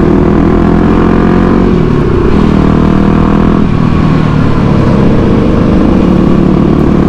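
Yamaha WR250X supermoto's single-cylinder engine running under way, heard from the rider's seat. The engine note dips briefly and picks up again twice, about two seconds in and near the middle.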